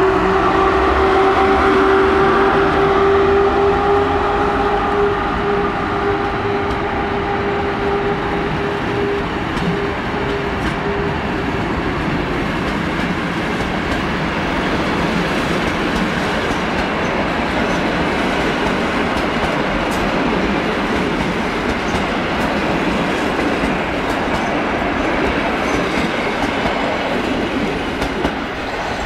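PKP Intercity EP07 electric locomotive pulling a passenger train past, with a steady whine from the locomotive that fades over the first dozen seconds. A long rake of passenger coaches follows, rolling by with wheels clicking over the rail joints, and the noise dies down near the end as the last coaches move off.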